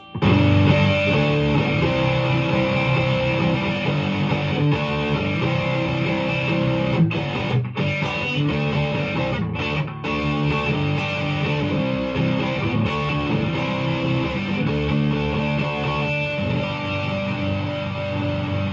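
Electric guitar with both humbuckers on, an Epiphone Les Paul with Gibson '57 pickups, played through an amplifier: full chords strummed continuously, with a few brief breaks in the middle.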